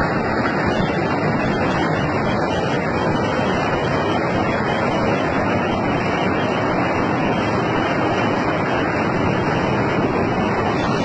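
Muddy flash-flood water rushing down a street in a steady, continuous torrent.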